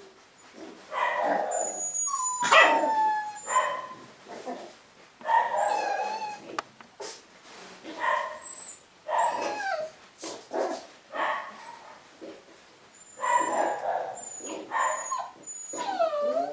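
Cavapoo puppies whimpering and yipping in a string of short high-pitched calls, some drawn out into gliding whines.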